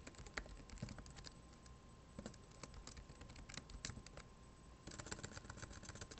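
Typing on a computer keyboard: scattered single keystrokes, then a quicker run of keys near the end.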